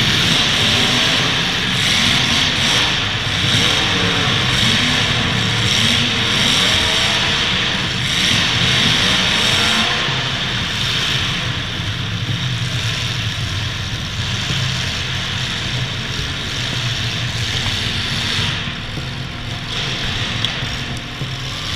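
Demolition derby car engines running and revving, with a dense rush of noise over them; louder for the first half, then easing off.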